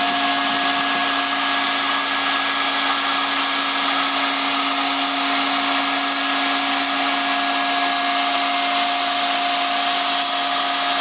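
BAK MicOn semi-automatic hot-air overlap welder running through a weld: the hot-air blower makes a steady rush, with a steady motor hum of a couple of fixed tones under it.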